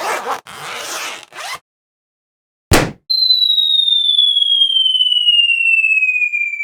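Sound-effect clips: a few rasping bursts like a zipper being pulled, a pause, and one sharp bang. About three seconds in, a single pure whistle tone begins and glides slowly down in pitch for over three seconds.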